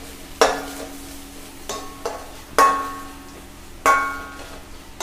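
A steel spoon stirring spiced shallots and garlic frying on a slow flame in a stainless steel pan, knocking against the pan about five times; three of the knocks are loud and ring metallically. A faint frying sizzle runs underneath.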